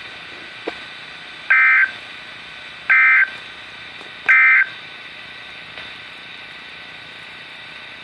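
Three short bursts of EAS digital data tones from a NOAA Weather Radio receiver's speaker, about a second and a half apart. This is the end-of-message code that closes the alert. A steady radio hiss runs between the bursts.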